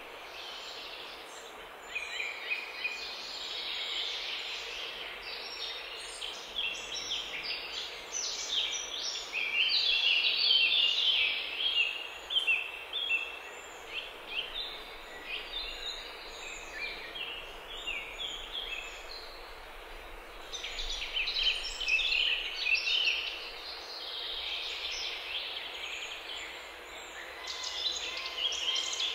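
Songbirds singing: a dense run of quick, high chirps and trills from several birds at once, busier in stretches, over a faint steady background hiss.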